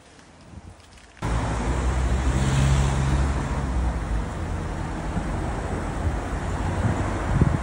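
Road traffic: a motor vehicle running close by, cutting in suddenly about a second in and loudest a second or two later.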